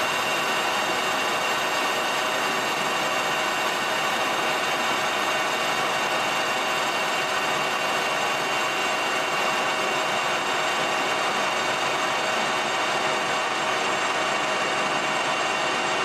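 Colchester Master 2500 centre lathe running steadily with a constant whine, its insert tool taking a facing cut across the end of a bolt head.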